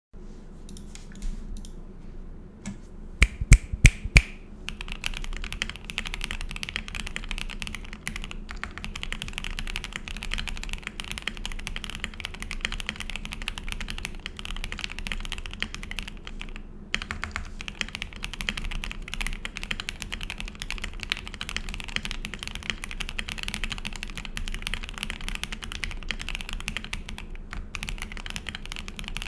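Kezewa Enter67 mechanical keyboard with lubed Banana Split linear switches on an aluminium plate, with foam in the case, being typed on. A few single loud key strikes come about three to four seconds in, then fast continuous typing follows, broken by a brief pause about halfway.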